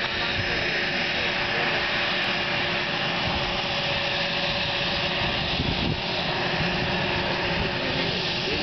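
Twin General Electric TF34 turbofan engines of an A-10 Thunderbolt II running at taxi power as it rolls past: a steady jet rush with a constant tone over it.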